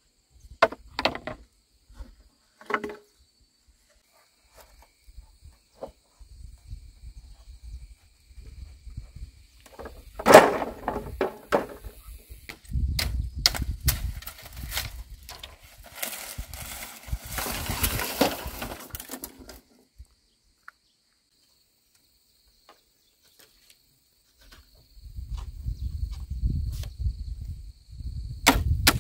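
Bamboo poles knocking in a few sharp clacks, the loudest about ten seconds in, then dry leaf thatch rustling as it is pulled from a bamboo frame.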